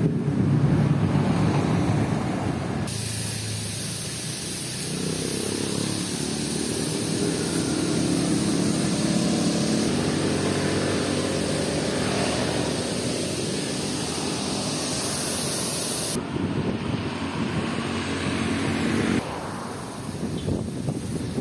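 Wind rushing over the microphone with street traffic noise, including a vehicle engine hum through the middle. The sound changes abruptly a few times.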